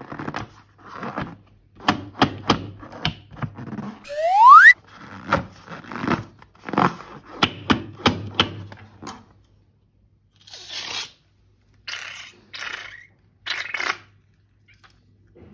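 Balloons and slime being handled: a quick run of clicks, scrapes and crinkles, with one short rising squeal about four seconds in, the loudest sound. Near the end come a few short hissing squelches.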